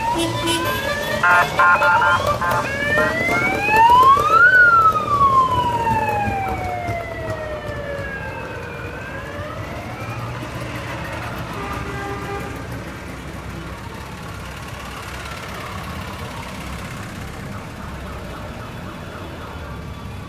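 A siren wails, climbing in pitch to its loudest point about four seconds in and then falling slowly over the next few seconds, with a few short horn blasts just before it. Parade cars drive slowly past underneath, with fainter siren glides later on.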